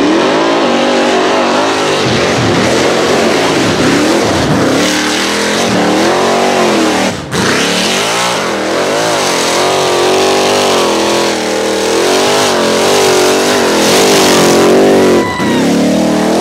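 Rock bouncer buggy's engine revving hard on a steep hill climb, its pitch swinging up and down over and over as the throttle is worked, with a brief break about seven seconds in.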